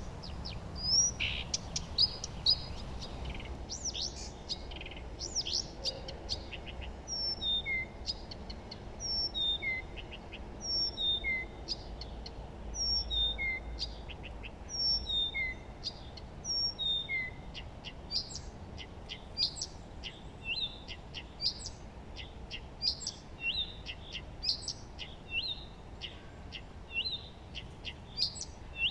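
Several songbirds singing and chirping with short high notes. Through the middle one bird repeats a short phrase of notes stepping down in pitch, about every two seconds, over a faint low background rumble.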